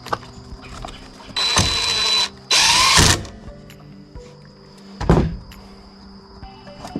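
Two short bursts of loud hiss, each about a second long, one right after the other, then a single thump a couple of seconds later, over steady background music.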